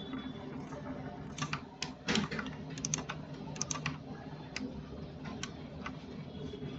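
Computer mouse clicking as faces are picked, with sharp irregular clicks, several in quick pairs, from about one and a half seconds in until about five and a half seconds in. A faint steady low hum runs underneath.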